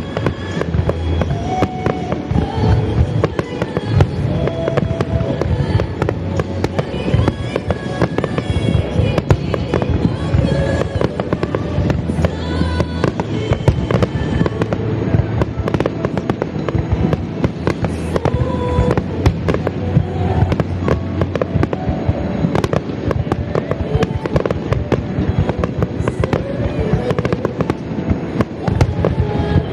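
A rapid, continuous barrage of fireworks shells bursting and crackling, with music playing along with the display.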